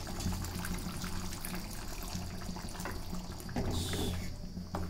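Liquid sounds from paneer-mushroom gravy in a steel kadhai on the stove, just thinned with a little water, with a steady low hum underneath. About three and a half seconds in, a wooden spatula starts stirring through it with a brief scraping swish.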